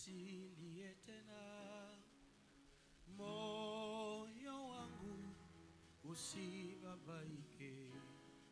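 Quiet gospel music: held, wavering sung notes over instrumental accompaniment, leading into a worship song.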